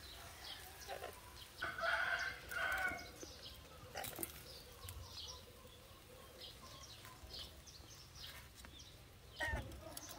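A rooster crows once, about two seconds in, over the steady chirping of small birds. A sharp click comes a couple of seconds later.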